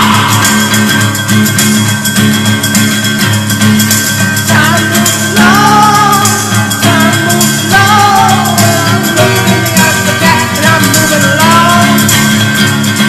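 Background music: a guitar-led song with a singing voice that comes in about four seconds in.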